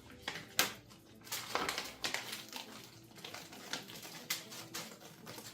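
Scattered clicks and soft knocks as pieces of lobster are set down into a baking pan among the other seafood.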